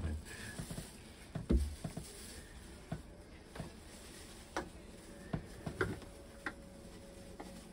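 Scattered light knocks and clicks of hands working on the fuel filter of a narrowboat's diesel engine, with one louder thump about a second and a half in.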